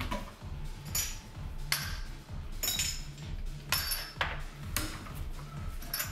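Glassware being handled on a countertop: about eight sharp clinks and knocks, several with a short glassy ring, as shot glasses and a bottle are taken out and set down. Background music with a steady low beat plays underneath.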